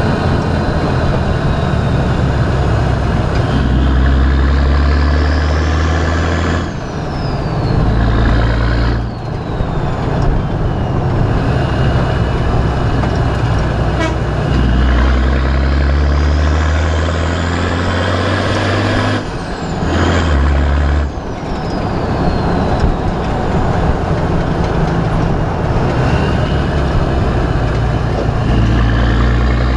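Nissan TD42 4.2-litre straight-six turbo-diesel with a T3/T4 turbo, heard right at the tip of its 3-inch exhaust with a single small muffler while driving. The engine note and a high turbo whistle rise over several seconds under acceleration, twice; the sound dips briefly a few times and the whistle falls away as the throttle is lifted. It starts rising again near the end.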